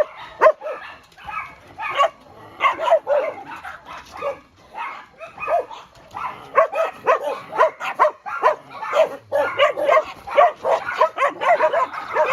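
Dogs barking over and over in quick short barks and yips, several a second, thinning briefly a few seconds in and then picking up again.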